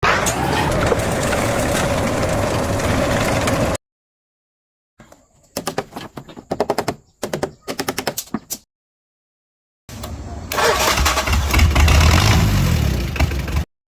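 Three short bursts of machinery sound, each cut off abruptly: first a steady mechanical noise, then a quick run of sharp knocks or taps, then a motor running with a heavy low rumble.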